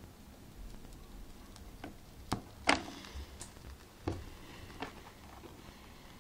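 Several sharp clicks and knocks at uneven intervals, the loudest a little under three seconds in.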